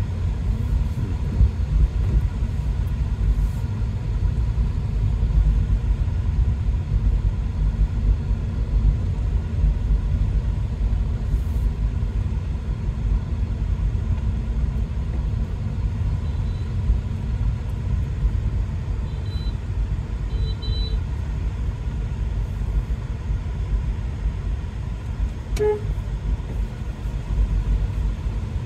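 Steady low rumble of a car's engine and road noise heard from inside the moving cab. A few faint short horn beeps come a little past halfway, and one brief beep comes near the end.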